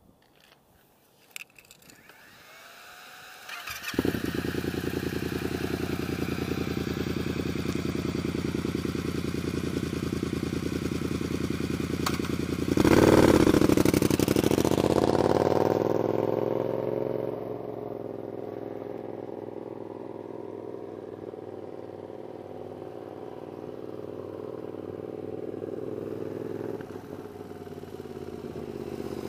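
Yamaha FZ-07 parallel-twin engine through an aftermarket Toce exhaust. It starts about four seconds in and idles, then revs loudly as the bike pulls away past the microphone. The pitch falls as it rides off, and it grows louder again near the end as the bike comes back.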